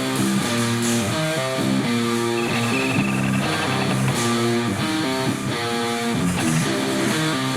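Instrumental rock music: strummed electric guitar over bass, with the chords changing about every half second to a second.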